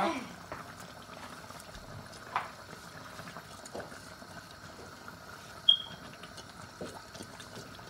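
Wet rice pushed by hand out of a steel bowl into a pot of simmering chicken stock: soft wet sliding and faint bubbling. A small knock comes a little after two seconds in, and a short high squeak, the loudest sound, a little before six seconds.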